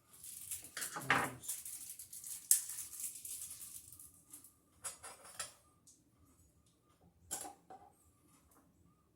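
Metal and plastic hardware clinking and scraping as it is handled at a surface-mount wire mold electrical box. A burst of rattling with sharp clicks lasts the first few seconds, then a few separate clicks follow.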